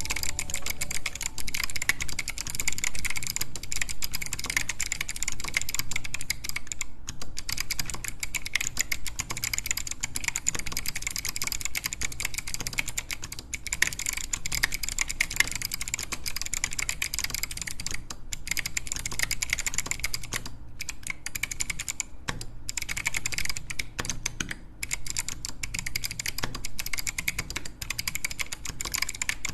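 Fast, continuous typing on a mechanical keyboard fitted with Arctic Fox clicky switches, a torsion-spring click-bar design with a thin, bright click on each keystroke. The typing pauses briefly a few times.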